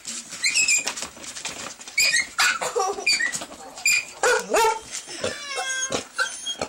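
Dog whimpering and crying: a run of short high-pitched yelps, then longer whines that slide up and down in pitch, with a few knocks among them. The crying is the distress of a dog separated from its cat companion.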